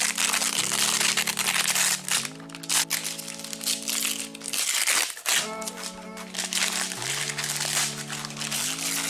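Background music with sustained chords that change every second and a half or so and drop out briefly about halfway, over the crinkling of plastic masking film being peeled off a tire.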